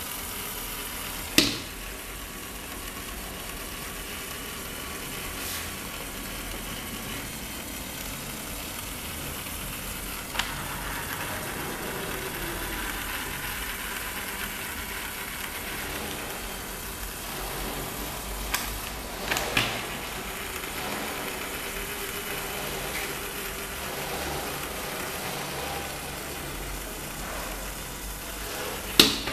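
LEGO WeDo 2.0 robot's small electric motor and gear train running steadily, driving its wheeled arms. A few sharp clacks come at uneven intervals, with a cluster of them about two thirds of the way through.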